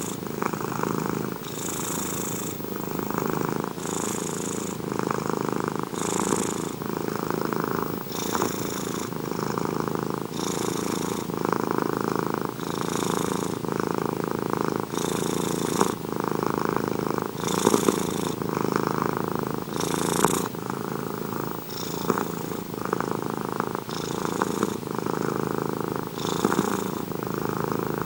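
Domestic cat purring steadily, with a breathier, higher part that comes back about every two seconds as it breathes in and out.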